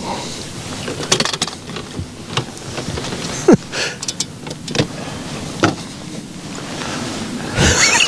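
Handling noises in a fishing boat: scattered knocks, clatter and rustling as a large buffalo fish is worked out of a landing net and lifted by hand.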